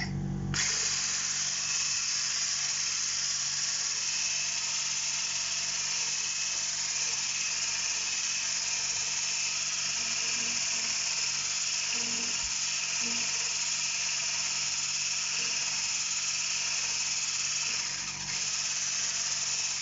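Braun hand blender with a whisk attachment running steadily, whisking chocolate cake batter in a stainless steel bowl. It starts about half a second in and dips briefly near the end.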